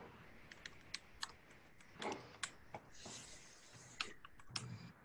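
Faint computer keyboard typing: irregular key clicks as a short word is typed. A brief soft hiss comes about three seconds in.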